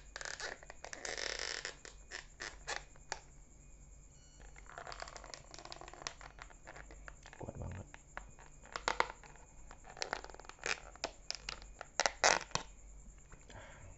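Thin plastic crinkling, rustling and clicking as a snap-on lid is pried off a disposable plastic cup of fruit salad. The sharpest clicks come near the end, and there is one dull bump about halfway.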